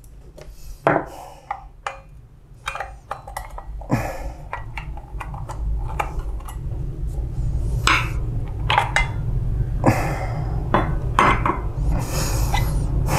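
Irregular clicks, taps and knocks of small plastic and metal parts and a hand tool as a Toshiba e-Studio 856 copier's CD3 waste-toner drive unit, with its gears and shaft, is taken apart by hand. A low steady hum runs underneath and grows louder after the first few seconds.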